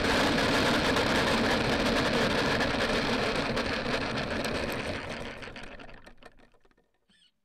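Radio-controlled model airplane touching down and rolling over rough gravel, heard from a camera on the airframe. A sudden loud, dense rattle of the wheels and airframe on the stones, with the engine ticking over beneath it, fades out as the plane slows to a stop about six or seven seconds in.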